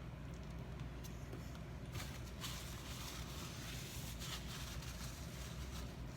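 A person eating a take-out chicken fajita: chewing, with small clicks and rustling that are busiest from about two seconds in, over a low steady hum.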